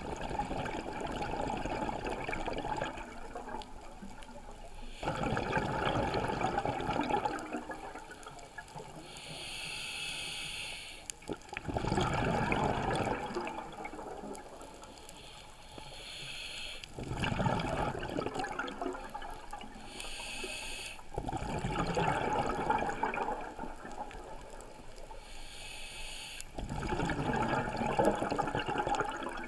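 Scuba diver breathing through a regulator underwater: a short hiss on each inhale, then a longer burst of bubbling exhaust on each exhale, in a steady cycle about every four to five seconds.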